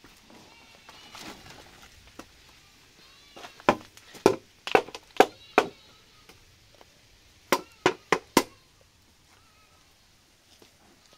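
Sharp knocks in two runs: five about half a second apart near the middle, then four in quicker succession a couple of seconds later, as hands work at the doorway of a wooden hut.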